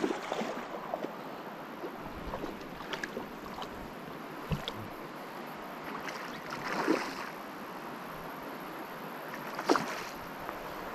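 River water running steadily, with a few brief louder noises, the clearest about seven and ten seconds in.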